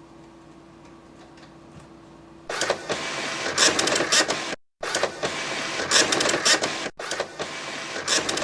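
Office printer starting up about two and a half seconds in and running with a rapid mechanical clatter as it feeds paper. The sound cuts out abruptly twice for a moment.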